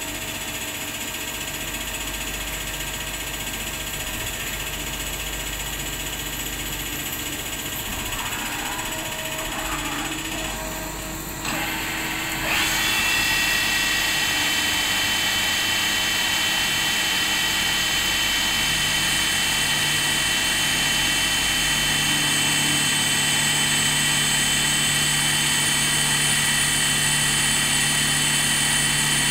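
Spinner TC77-SMCY CNC lathe running a machining cycle, with its spindle turning and coolant spraying. About twelve seconds in the sound briefly dips, then comes back louder and steady, with several high whining tones.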